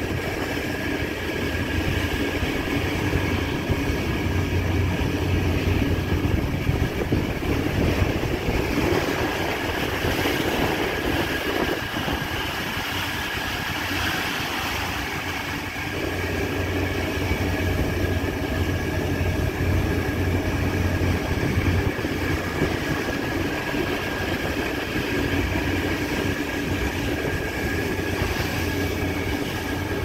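Steady drone of a ship underway: a low engine rumble mixed with the rush of churning sea water along the hull, and a thin, steady whine above it.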